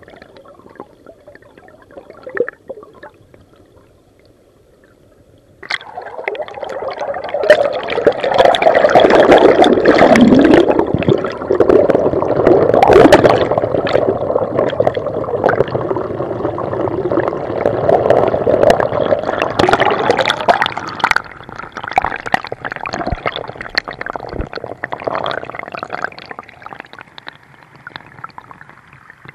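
Creek water heard through a submerged camera: muffled and low at first, then about six seconds in it turns suddenly much louder, with a dense crackle, and eases off over the last several seconds.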